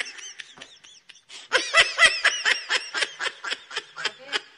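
Laughter sound effect: a rapid run of short, high-pitched snickering laughs, faint at first and louder from about a second and a half in.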